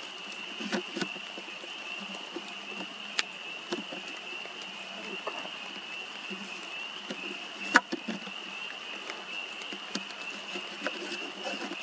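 A steady, high-pitched chorus of frogs calling together. A few sharp clicks sound over it, the loudest about eight seconds in.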